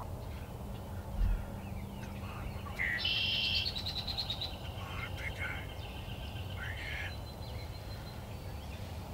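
Songbirds singing in the morning: scattered chirps and trills, the loudest a high buzzy trill about three seconds in. A brief low thump about a second in.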